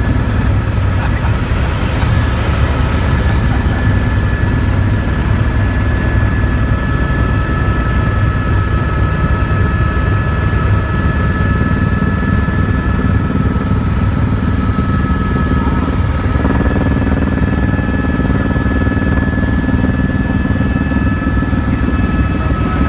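Helicopter in flight, running steadily: a dense low throb from the rotor, with a thin steady high whine on top.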